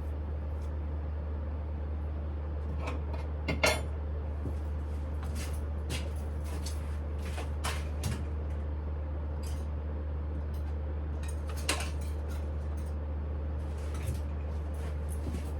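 Smithy lathe running with a steady low hum, with scattered light metallic clinks and ticks on top; the loudest clink comes about three and a half seconds in, and another near twelve seconds.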